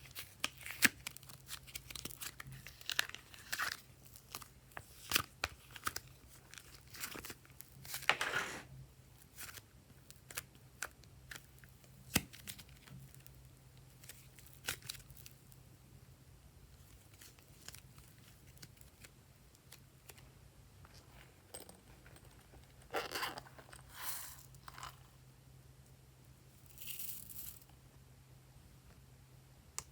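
Hands squishing and stretching glossy slime, with irregular small clicks and crackles and a few longer crackling bursts near the middle and near the end. A faint steady low hum runs underneath.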